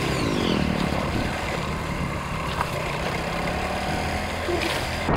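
Motorcycle engine running steadily while riding along, its pitch dropping briefly near the start as the engine slows.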